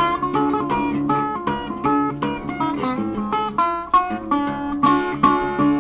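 Background music: an acoustic guitar picking quick notes in an instrumental break between the sung verses of a song.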